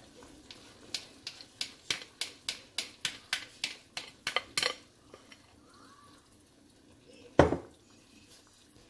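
A plastic cup knocking lightly against the rim of a cooking pot as tomato juice is emptied into it, about a dozen clicks at about three a second. Then comes one louder knock of cookware.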